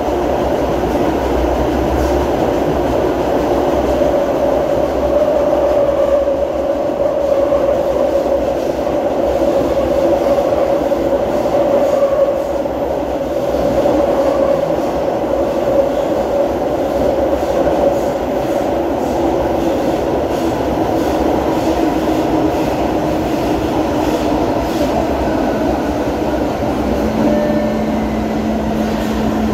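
Brasília Metro série 1000 electric train running through a tunnel, heard from inside the car: a steady loud rumble of wheels on rail with a motor whine that sits lower in pitch in the second half. Near the end a new steady low hum comes in as the train nears a station.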